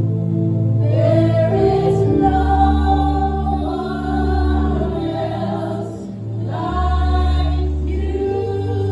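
Gospel singing: sung phrases over held accompaniment chords, the voices coming in about a second in and again near the end.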